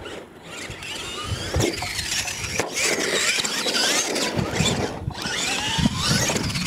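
Radio-controlled monster truck's motor whining, the pitch gliding up and down again and again as the truck speeds up and slows while driving.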